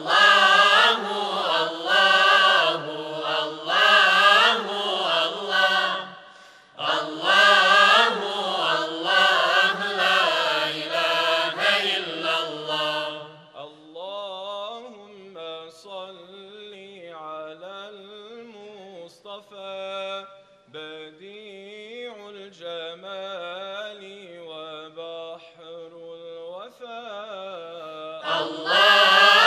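Male choir singing unaccompanied, a slow chant-like melody. About halfway through, the singing drops to a much softer passage. It swells back to full voice near the end.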